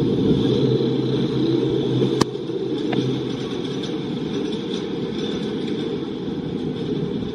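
Roller coaster train climbing its lift hill, the lift machinery running with a steady low mechanical drone. A single sharp click about two seconds in.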